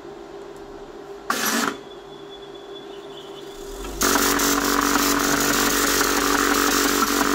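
Printronix P5005 line matrix printer starting up in its factory demo mode: a short loud burst of noise about a second in, then about four seconds in it starts printing with a loud, steady mechanical clatter over a fixed hum.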